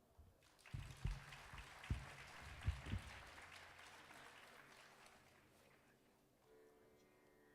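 Audience applause that fades away over several seconds, with a few low thumps in the first three seconds. Near the end, a string instrument starts playing soft sustained notes.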